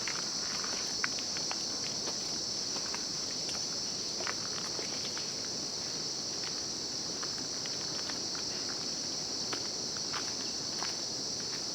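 Insects droning in one steady high-pitched band, with scattered light clicks throughout.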